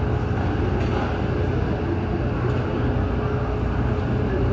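Boeing 737 MAX 8's jet engines idling after pushback: a steady drone with a constant hum tone running through it.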